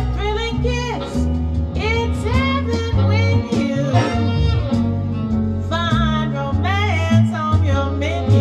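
Jazz ballad recording played back through loudspeakers driven by a single-ended EL156 valve amplifier: a melodic lead line with vibrato over a stepping bass line, without sung words.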